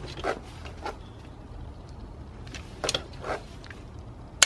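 Click-type torque wrench being worked in a few short ratcheting strokes as the drive-belt tensioner bolt is tightened, then one sharp click near the end as the wrench reaches its 38 Nm setting.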